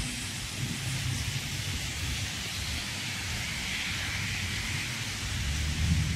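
Steady rain falling, a soft even hiss, with a low rumble underneath.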